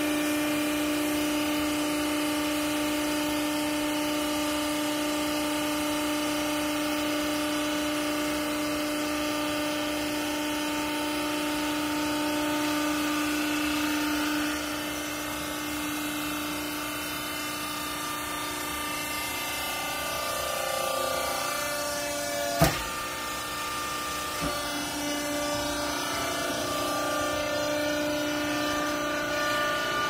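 Vertical hydraulic baler's power unit, its electric motor and hydraulic pump, running with a steady hum while the ram presses a bale of used clothes. About halfway through the tone changes and drops a little, and a single sharp knock comes about three-quarters of the way through.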